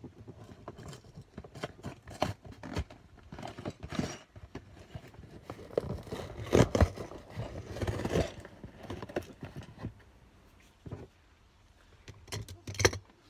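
A cardboard LEGO set box being opened by hand, its sealed end flap prised and peeled back: a run of irregular scraping, tearing and clicking of cardboard, busiest in the middle, quieter for a while near the end, then a few sharp clicks.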